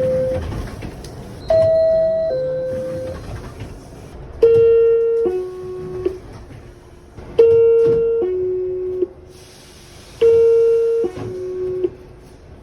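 R62A subway car door chime sounding four times, each a two-note falling ding-dong about three seconds apart. The first is higher-pitched than the three that follow. It is the door-closing warning chime.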